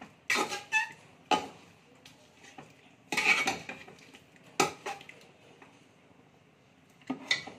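Metal spatula scraping and knocking against the side of a metal cooking pot as thick chicken curry is stirred, in irregular strokes. The longest, loudest scrape comes about three seconds in, then a quiet stretch before a last scrape near the end.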